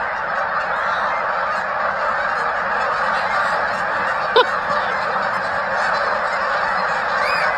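Avalanche coming down a mountainside: a steady rushing roar of snow and wind, with a brief short cry about four and a half seconds in.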